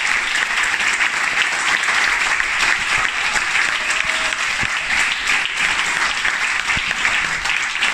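Audience applauding, with steady, continuous clapping from many hands.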